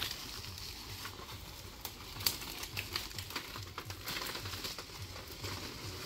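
Leaves and twigs rustling and crackling as people push through dense brush, with scattered sharp snaps; the loudest snap comes a little past two seconds in.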